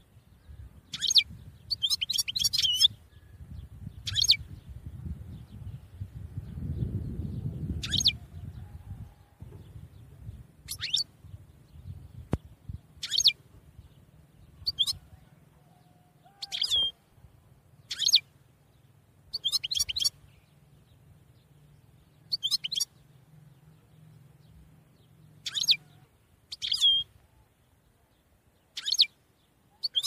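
A small songbird chirping: short, high calls, some single and some in quick clusters, every one to three seconds, over a faint low rumble that is heavier in the first several seconds.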